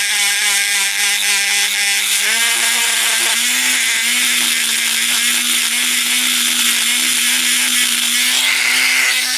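Dremel rotary tool with a sanding drum running, grinding inside a small oven-baked clay watering can to smooth it out. A steady motor whine with a gritty sanding hiss; the whine steps up slightly in pitch about two seconds in.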